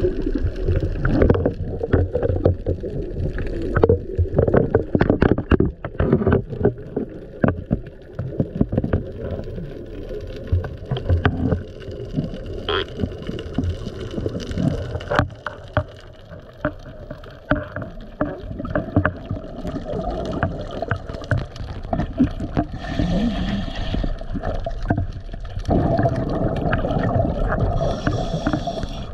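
Underwater ambience: a muffled low rush of moving water with many sharp clicks and knocks scattered through it.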